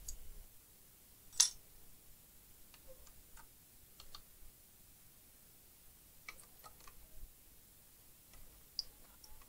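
Scattered light clicks and taps of hands handling a laptop's plastic case, with one sharp, louder click about a second and a half in and small clusters of ticks later.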